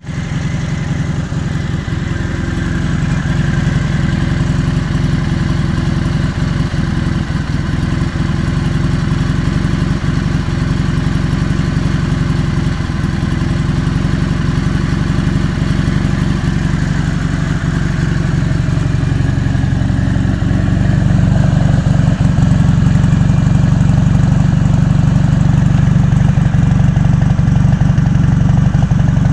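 Dnepr MT-11's 650 cc flat-twin engine idling steadily on its freshly repaired electronic ignition, its carburettors not yet adjusted. About twenty seconds in it gets louder and holds there.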